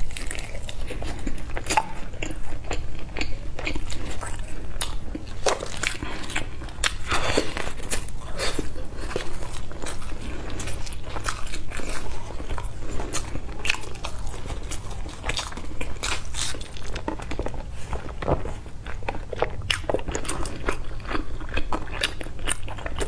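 Close-miked eating sounds: biting and chewing a sticky rice dumpling (zongzi), with many short mouth clicks and smacks throughout, over a steady low hum.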